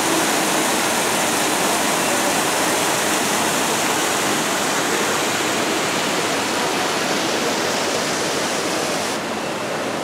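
Small waterfall splashing steadily down a rock face, a continuous rushing sound; the hiss thins a little near the end.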